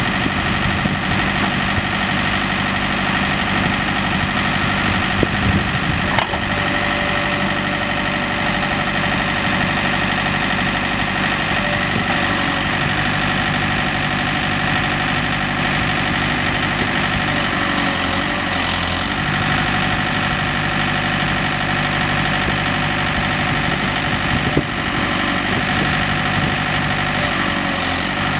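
John Deere 110 compact backhoe loader's diesel engine running steadily, its note shifting slightly a few times, with a couple of light clicks.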